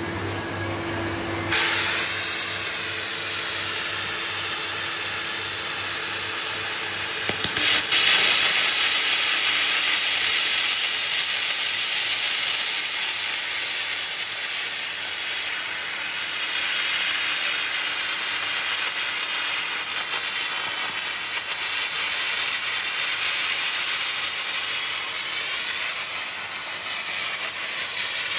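Automatic air carbon arc gouging: a jointed carbon electrode fed by a converted Lincoln LT-7 tractor, with its arc and compressed-air jet blowing molten steel out of a plate. A loud, steady hiss starts suddenly about a second and a half in, after a steady hum, and runs on as the tractor travels.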